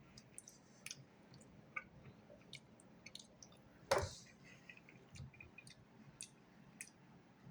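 Faint eating sounds from a spoonful of soup: scattered small clicks of a spoon against the container and quiet chewing, with one louder mouth sound about four seconds in.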